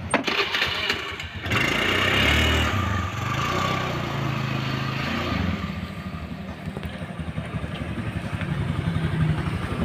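A few clicks and knocks, then a Honda BeAT scooter's small single-cylinder engine starts about a second and a half in, revs briefly and settles into a steady idle.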